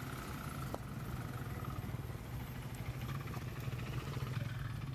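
A motor vehicle's engine running with a steady low drone.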